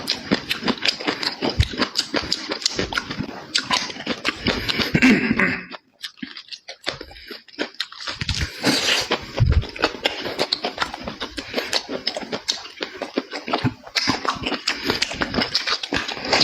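Close-up chewing and lip-smacking of food, with a quick run of wet clicks and smacks that pauses briefly about six seconds in.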